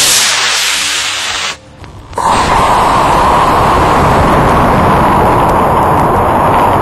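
A C6-3 model rocket motor firing at liftoff: a loud hiss that stops about a second and a half in. About two seconds in, a steady, loud rushing noise from the onboard camera's wireless audio feed takes over.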